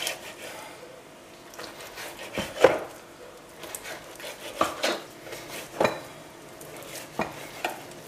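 Kitchen knife cutting raw chicken breast into pieces on a plastic cutting board: about seven irregular knocks as the blade meets the board, the loudest about two and a half seconds in.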